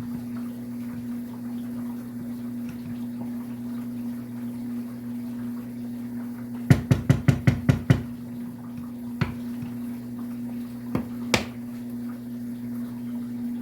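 A quick run of about seven sharp knocks, about six a second, midway through, then three single knocks, all over a steady low hum.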